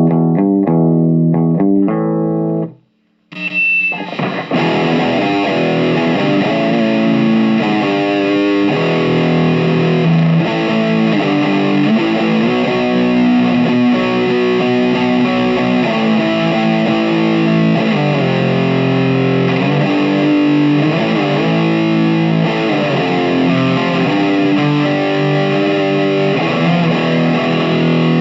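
Electric guitar played through a Marshall MG15MS2 micro stack with two Celestion speakers, one a VT Junior, wired together. A few seconds of picked notes stop briefly about three seconds in, then give way to continuous distorted riffing.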